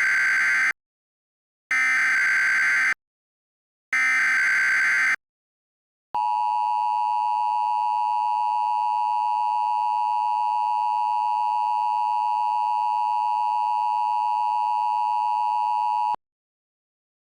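Emergency Alert System tones from a mock alert: three short bursts of SAME header data, a buzzy digital screech, about a second apart, then the two-tone attention signal, a steady two-pitch tone that holds for about ten seconds and cuts off abruptly.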